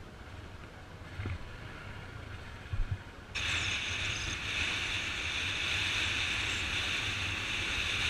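Wind rushing over the microphone of a camera on a moving Bajaj Pulsar motorcycle, with the engine's low hum underneath and a couple of thumps. A little over three seconds in, the rush suddenly becomes much louder and hissier and stays that way.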